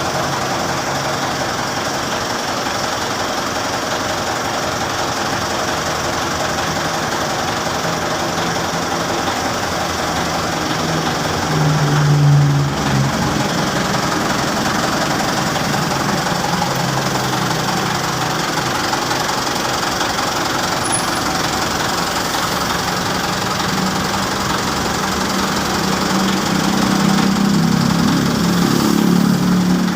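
Mitsubishi Canter FE84 BC bus's four-cylinder diesel engine running steadily with a diesel clatter. It revs up briefly about twelve seconds in, and the engine speed rises again near the end.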